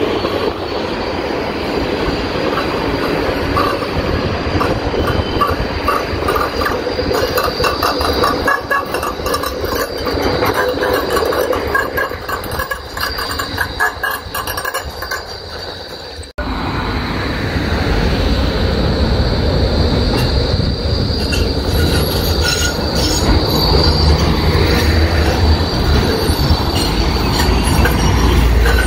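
Melbourne E-class trams taking curved track: a steady high wheel squeal over the rumble and clatter of the tram passing. The sound cuts off abruptly just past the halfway point and resumes with a second tram approaching, its low rumble building towards the end.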